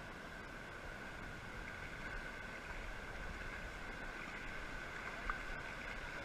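Steady wash of shallow surf around wading legs, heard as an even hiss, with one sharp click about five seconds in.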